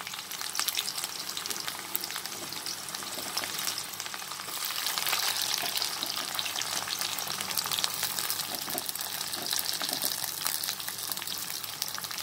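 Sliced onions sizzling in hot mustard oil in a wok, just after going in to fry: a steady sizzle full of small crackles and pops.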